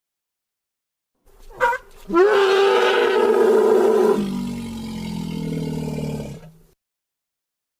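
Creature roar sound effect for a movie monster. After a second of silence there is a brief sliding cry, then a loud pitched roar for about two seconds that drops into a lower, quieter growl and cuts off about six and a half seconds in.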